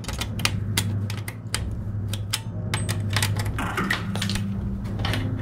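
Irregular clicks and clacks of hands working audio equipment, switches and knobs on a mixing console, over a steady low electrical hum.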